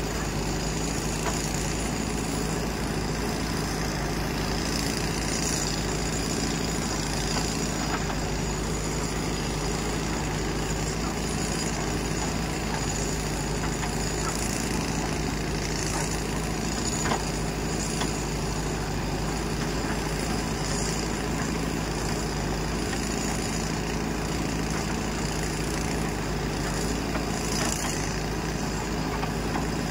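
JCB 3DX backhoe loader's diesel engine running steadily while its backhoe arm works, a constant even drone. A single short knock sounds about two-thirds of the way through.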